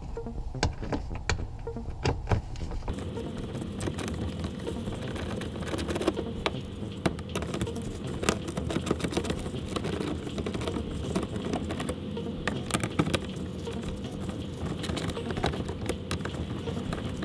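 Scattered sharp clicks and light rattling from a hand tool turning the fasteners of a car's engine undertray, over a steady hum.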